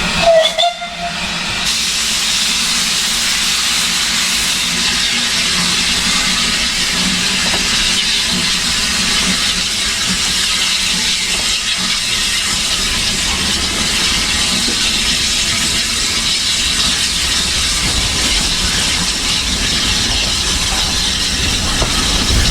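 Steam locomotive Dunlop No 6 letting off a steady hiss of steam, after a brief sharper sound right at the start.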